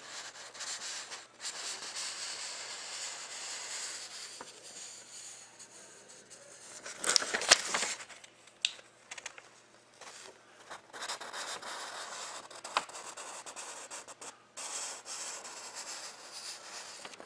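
Rubbing and scraping handling noise, such as paper or card being moved on a surface. It grows louder for about a second about seven seconds in, with a few scattered clicks.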